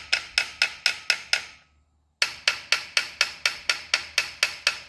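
A hammer lightly tapping on a tractor's PTO pump housing to break it loose from the transmission, in a rapid steady series of sharp ringing taps, about five a second, with a brief pause about halfway through.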